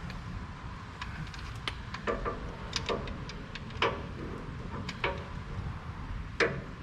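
Metal tools clinking at a truck's oil drain plug, with about eight irregular sharp clicks over a low steady hum, the loudest about six and a half seconds in.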